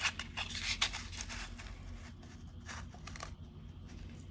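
Paper coin wrapper on a roll of half dollars being torn open and peeled back by hand: crinkling, rustling paper, with a few sharp crackles in the first second or so, then softer scratching.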